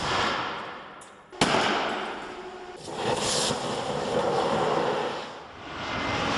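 Laptop lithium-ion battery pack exploding in thermal runaway after being forced to fail by heating: a sharp bang, a second bang about a second and a half later, each dying away, then a steady rushing hiss of the burning, venting cells. Near the end a jet airliner's engine noise rises.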